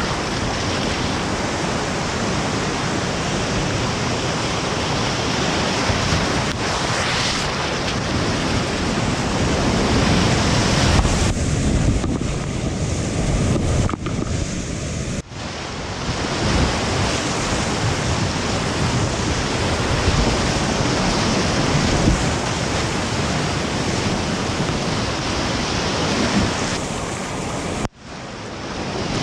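Rushing whitewater of a grade IV–V river gorge, a dense steady wash of water noise with wind on the microphone. The sound breaks off sharply and picks up again twice, about halfway through and near the end.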